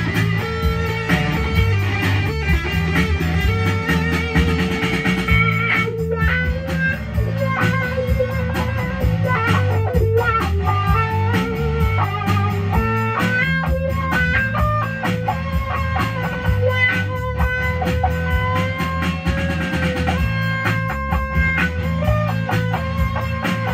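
Gibson SG electric guitar playing sustained, held lead notes, with a strong low accompaniment underneath.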